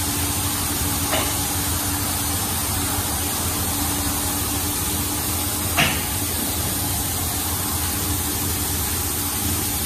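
A D&S 5000 touchless car wash running as its gantry travels along the bay: a steady machine hum under a spraying hiss. There are two short knocks, a faint one about a second in and a louder one about six seconds in.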